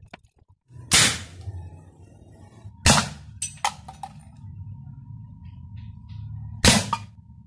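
Three sharp cracks, about two and four seconds apart, with a few lighter clicks after the second: shots from a homemade PVC pneumatic air rifle with a stainless steel barrel. A steady low hum runs underneath.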